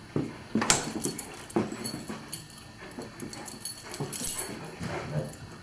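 Great Dane scrambling after a flashlight beam: a string of knocks and thumps from its movement, the loudest about half a second and one and a half seconds in, with smaller ones following.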